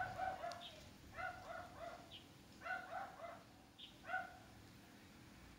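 A small dog yapping faintly in short runs of three or four quick yaps, with pauses between the runs.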